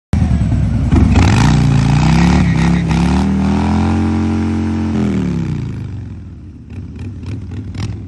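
Harley-Davidson Fat Boy's Milwaukee-Eight 114 V-twin revving hard during a burnout, the rear tyre spinning in place. The revs climb, hold high for a couple of seconds, then drop about five seconds in and the engine fades as the bike pulls away, with a few sharp crackles near the end.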